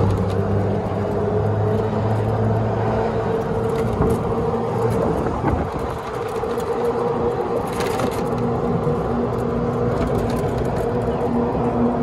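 Club Car golf cart driving along a paved road: a steady motor hum with tyre and road noise.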